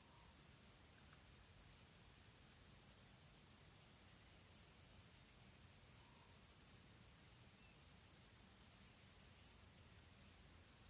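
Faint insect chirping, cricket-like: a steady high trill with short chirps a little more often than once a second, over a low background hum.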